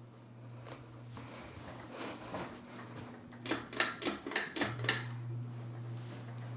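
Hampton Bay Havana ceiling fan's motor humming steadily. About three and a half seconds in the hum drops out during a quick run of about eight sharp clicks, then comes back.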